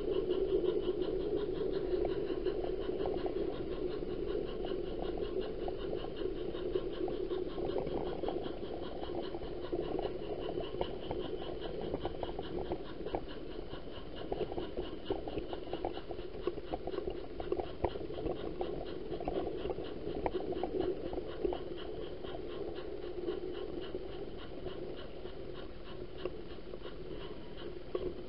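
Model train running on the layout: a steady hum with many small, irregular clicks over it, from the motor and the wheels on the track.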